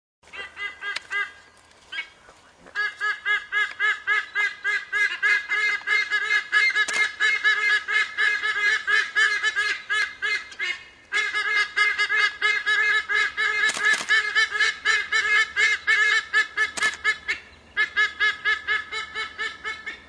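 A pair of white-bellied sea-eagles honking together, long rapid runs of loud honks, several a second, broken by a few short pauses. The honking is directed at a passing wedge-tailed eagle.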